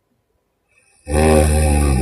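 A sleeping woman snoring: one loud, deep snore starts about halfway in and lasts about a second.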